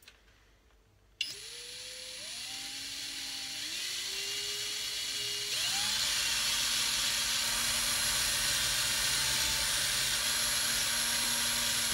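Cordless drill clamped in a vise, spinning a cloth buffing mop loaded with polishing compound against an alloy engine case. It starts about a second in, its motor whine climbing in steps, then runs steadily at high speed with the hiss of the mop on the metal.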